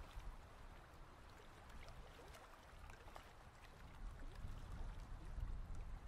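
Faint splashing and trickling water, with a low rumble growing louder about four seconds in.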